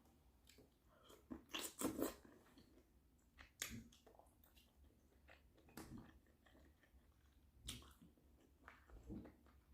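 Close-up eating sounds of a person chewing and biting into shrimp-boil food in sauce. They come in separate bursts a second or two apart, the loudest about two seconds in.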